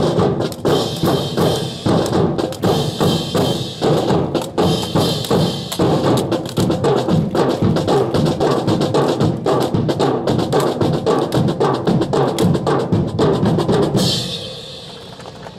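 Snare drum cadence played at a fast, steady beat, mixed with the wooden clacks of drill rifles being handled in the drill; it stops about fourteen seconds in.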